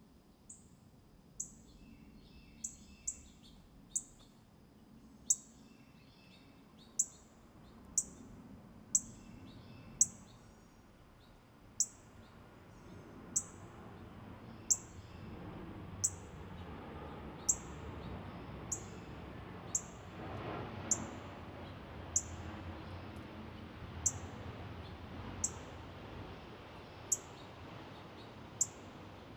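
A small songbird giving a sharp, high chip note over and over, about every second and a half. In the first ten seconds softer, lower calls sound between the chips.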